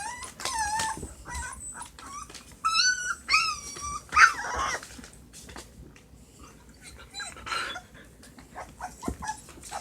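Puppies about a week and a half old whining and whimpering: short, high, wavering cries, several in a row, the clearest a pair around three seconds in and another around four seconds in.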